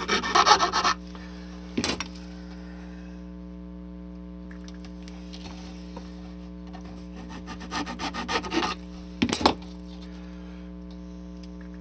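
Square file rasping in a window opening cut in thick styrene sheet, enlarging it to make it higher: two short spells of quick strokes, each followed by a sharp tap. A steady electrical hum runs underneath.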